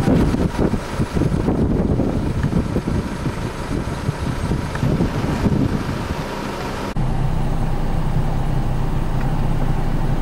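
Car driving, heard from inside the cabin: a low, uneven engine and road rumble that changes abruptly about seven seconds in to a steadier low drone.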